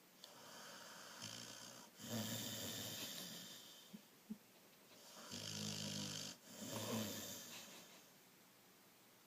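Snoring during sleep: two slow breaths about five seconds apart, each in two drawn-out parts, one straight after the other.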